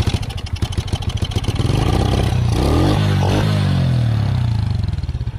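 Small mini bike engine running, with dense firing pulses, its pitch rising and falling about halfway through.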